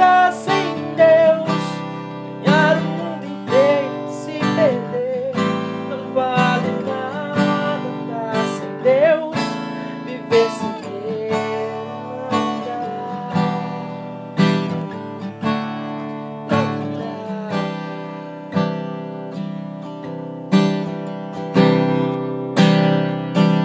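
Music: strummed acoustic guitar with a sung melody over it. The voice drops out about halfway through, leaving the guitar strumming chords on its own.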